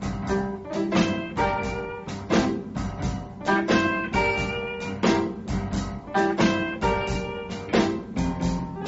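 Background music with a steady beat: plucked guitar and drum kit in a jazzy, bluesy style.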